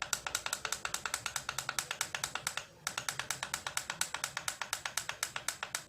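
Digital alarm clock giving a rapid train of short beeps, about ten a second, as a setting button is held to run the time forward. There is one brief break nearly three seconds in.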